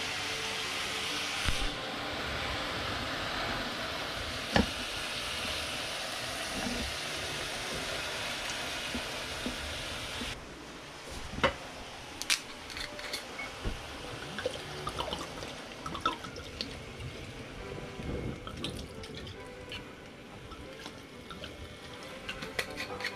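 Kitchen tap running water into a sink for about ten seconds, then shut off. Scattered clinks and knocks of kitchen utensils follow.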